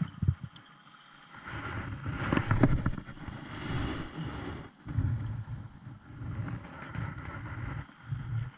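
Wind buffeting the microphone in uneven gusts, strongest around two to three seconds in, over water lapping against the hull of a small wooden fishing boat.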